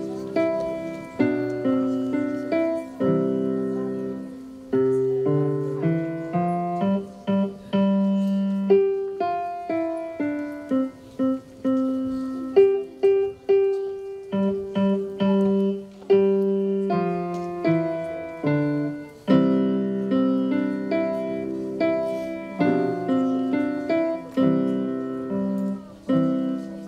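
Grand piano played solo: chords and single melody notes struck one after another, each ringing and fading.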